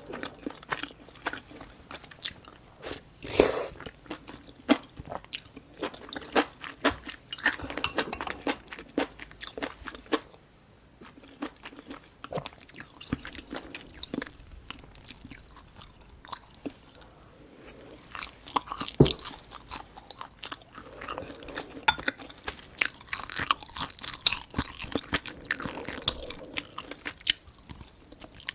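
Close-miked eating sounds: chewing and crunching on mouthfuls of a Korean home-cooked meal, with dense crackly clicks and a short lull about ten seconds in.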